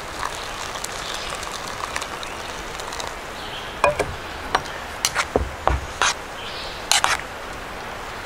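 A string of about eight sharp clicks and knocks from handling camp cooking gear while oatmeal is made, starting about four seconds in, over a steady outdoor background hiss.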